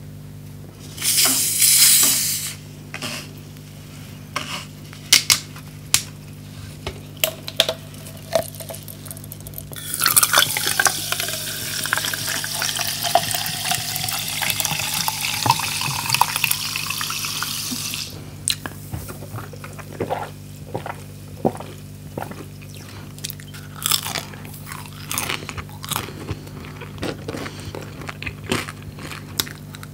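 Water poured from a plastic bottle into a plastic tumbler, a steady splashing stream with a sliding tone that lasts about eight seconds and then stops. Around it are a loud rustle about a second in and scattered small clicks and taps of handling.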